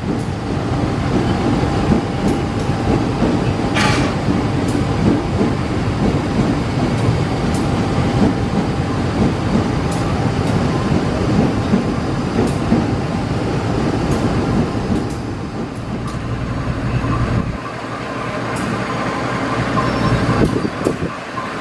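CC 201 diesel-electric locomotive running as it rolls slowly along the track, its engine and wheels on the rails making a steady rumble. There is a brief sharp noise about four seconds in.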